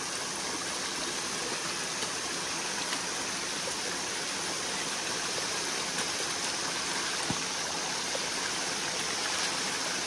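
Small mountain waterfall and stream rushing over rocks, a steady, even rush of water.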